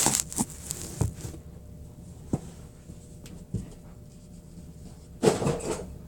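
Handling noise from a phone being moved and set down: several separate knocks and taps, the last about three and a half seconds in, then a short noisy rustle about five seconds in.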